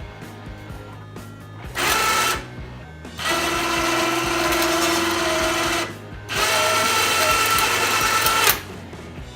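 Badland electric ATV winch motor running in three bursts: a short one about two seconds in, then two longer runs of two to three seconds each. It is working again after a failed relay in its control box was replaced.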